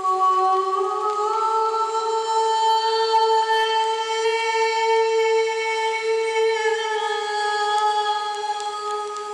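A woman's voice singing one long sustained note in a meditative, healing-voice style, rising slightly about a second in and held for about nine seconds, its overtones shifting with the vowel shape before it starts to fade near the end.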